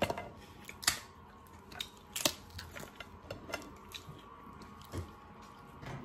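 Steamed lobster shells cracking and snapping as they are broken apart by hand, a series of sharp irregular cracks, the loudest about one and two seconds in.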